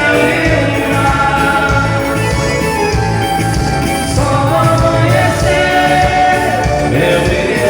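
Band music with a lead singer, over a steady bass line.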